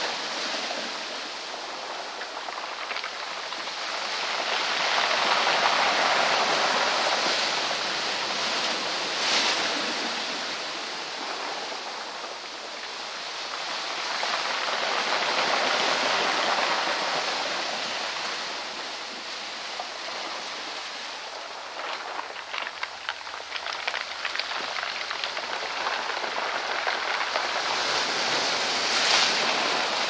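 Ocean surf surging and breaking among rocks, a rushing hiss of foam that swells and fades about every ten seconds, with a sharp crash of a breaking wave about nine seconds in and again near the end. Past the middle, a crackling rattle of round beach cobbles being rolled by the water.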